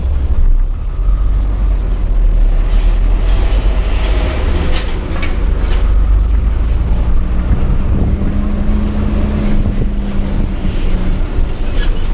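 Isuzu Giga truck's 285 PS diesel engine running while driving, heard inside the cab as a steady heavy low rumble. From about seven to eleven seconds in a humming drone rises over it, and a few short rattles come near the five-second mark.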